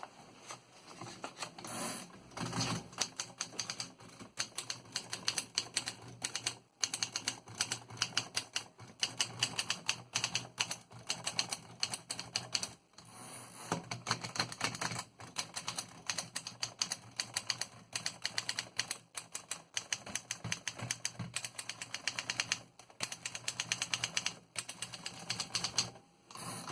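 Remington Rand Noiseless Model 1 portable typewriter (1935) being typed on: quick runs of key clicks with a few short pauses between them.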